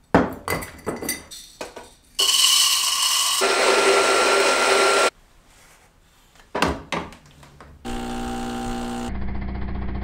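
Coffee beans clicking as they are handled, then a Rancilio burr grinder grinding for about three seconds. A couple of sharp knocks from the portafilter and tamper follow, then an espresso machine's pump hums steadily as a shot pours.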